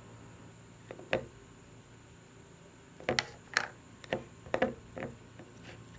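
Slime that has gone soft and melty being poked and squished, giving small sharp clicks: one about a second in, then about five more roughly half a second apart.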